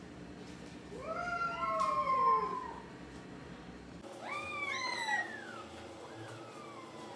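Domestic cats meowing: long meows that rise and then fall in pitch. Two overlapping pairs come about a second in and about four seconds in, with a fainter meow near the end.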